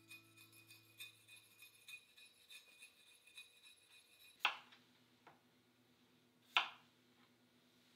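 A kitchen knife cuts through a cucumber onto a cutting board: two loud, sharp chops about four and a half and six and a half seconds in, with a lighter knock between them. Before the chops there is a run of faint quick ticking as the cucumber is handled at the sink.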